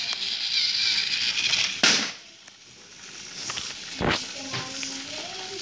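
Battery-powered toy train's small motor whirring as it runs along plastic track, stopping with a sharp clunk about two seconds in. A single knock follows about four seconds in.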